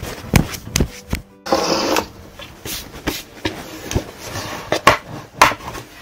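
Sharp knocks and clicks, about a dozen spread unevenly, as a folding lap table is handled and its metal legs are swung out, over background music.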